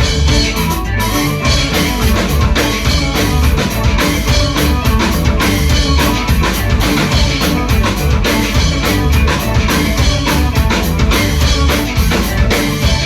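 Loud band music with drums, a heavy bass line and guitar, playing in a dense, steady rhythm.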